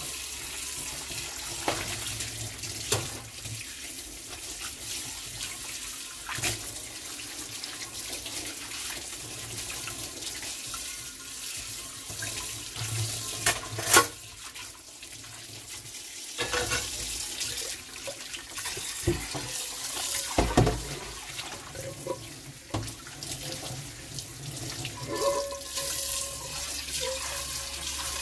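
Kitchen tap running into a stainless steel sink as dishes are rinsed by hand, with occasional sharp knocks and clatters as a rectangular pan and a steel pot are handled. Near the end the water pours into the steel pot.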